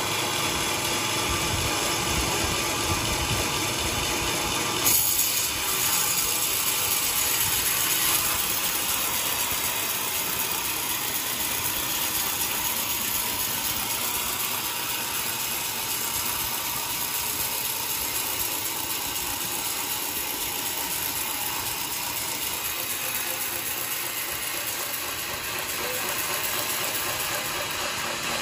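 Sawmill machinery running steadily, with a brief louder clatter about five seconds in.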